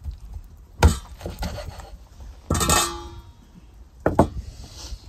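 A steel meat cleaver chops a whole fire-singed chicken on a wooden chopping board. There is one hard chop about a second in, then a ringing metallic clatter about halfway through, then two quick chops near the end.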